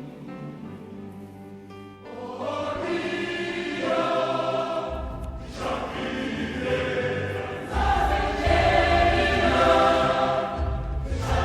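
Background music: a choir singing long held chords, swelling louder about two seconds in, with a low bass rumble joining about halfway through.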